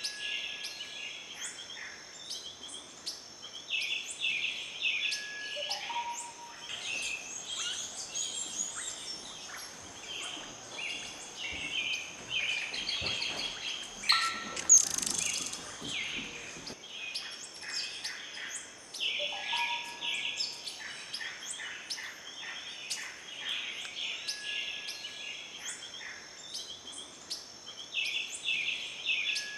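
Tropical forest birds chirping and calling in a dense, overlapping chorus of quick high notes, with occasional short whistled notes and a steady high-pitched hum underneath. About halfway through there is a brief, loud rushing noise.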